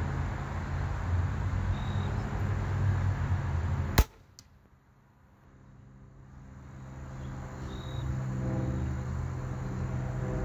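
Raven R29 crossbow firing: one sharp, loud snap of the release about four seconds in, followed a fraction of a second later by a faint knock of the arrow striking the target. A steady low background hum drops away after the shot and slowly returns.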